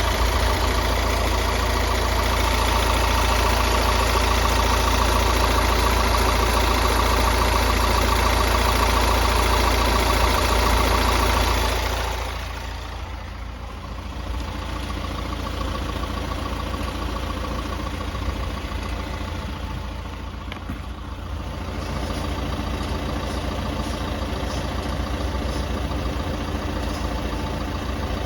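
Mercedes C180d's OM626 1.6-litre four-cylinder diesel idling steadily, with its owner unsure whether the engine sound is healthy at 195,000 km. About twelve seconds in, the sound turns quieter and stays steady.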